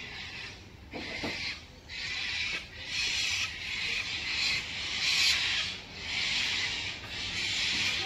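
A flock of wild lorikeets screeching together in a dense, harsh chorus that swells and fades in repeated surges about a second apart.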